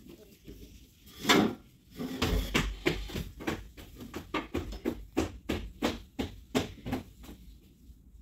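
Children moving about a tiled classroom: one louder knock about a second in, then a run of quick knocks and steps, about three a second, that dies away near the end.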